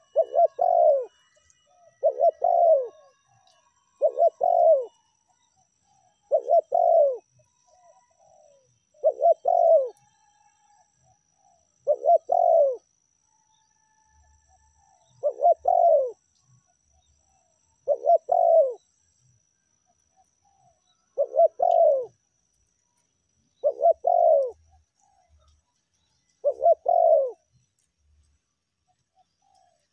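Spotted dove (tekukur) cooing: a series of eleven short coo phrases, about one every two and a half to three seconds, played as a lure call for trapping doves.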